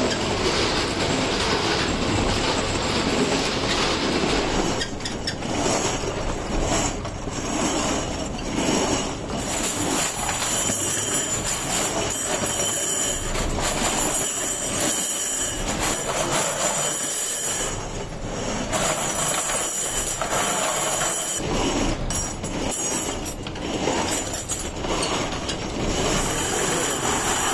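Rotating barrel drum full of steel U-hooks, turned by a ring gear, with the hooks tumbling and clattering steadily inside it.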